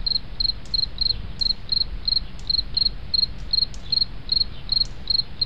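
Crickets chirping in a steady rhythm, about three short high chirps a second, over a low rumbling background hum. This is the stock 'crickets' sound effect marking an awkward silence.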